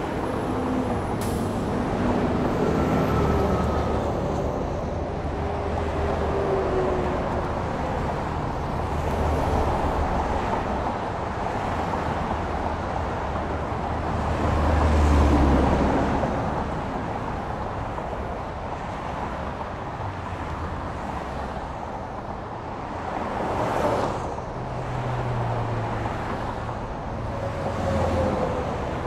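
Road traffic passing: a steady rush of tyres and engines that swells as vehicles go by, loudest about halfway through and briefly again twice near the end.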